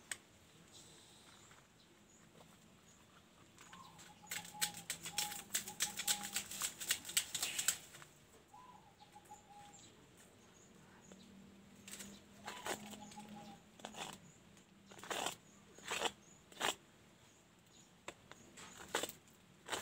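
Plastic toy trucks handled and knocked together. A burst of rapid clicking and rattling runs from about four to eight seconds, followed by scattered single clicks and knocks.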